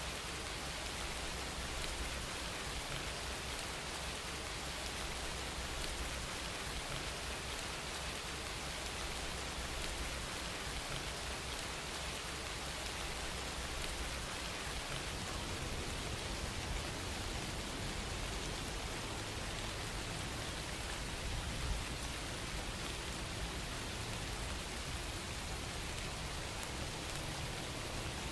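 Steady rain falling, a constant even hiss of drops.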